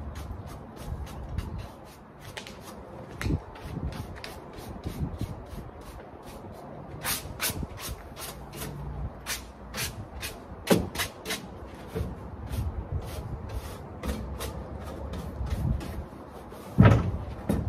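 A brush scraping coffee grounds off a freshly painted sheet-metal grill into a plastic wheelie bin: quick scratchy strokes, several a second, with one heavy knock near the end.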